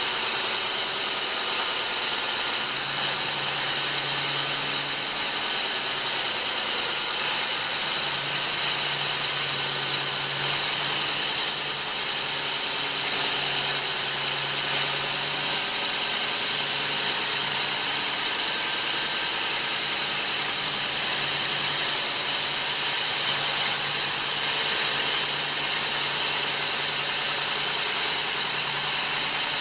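Cuttronix CM-10S3 3 kW single-phase core drill motor running steadily under load, turning a 200 mm core bit as it drills. A constant high-pitched motor whine and hiss.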